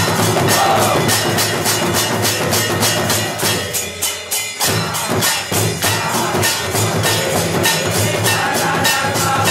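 Temple aarti music: bells and metal percussion struck in a fast, even beat of roughly four to five strikes a second over a low steady tone. The low part drops out for about a second a little before the middle while the strikes carry on.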